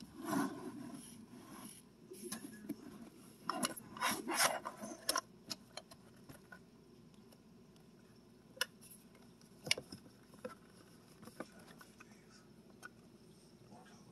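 Faint handling noises: rustling and scraping for about the first five seconds, then a handful of scattered clicks and taps.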